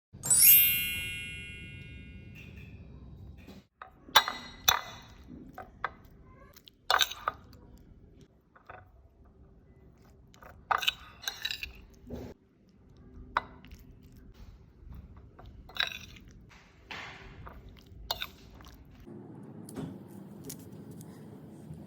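A bright metallic ring at the very start that dies away over about two seconds, then scattered clinks and knocks of kitchen utensils and cookware.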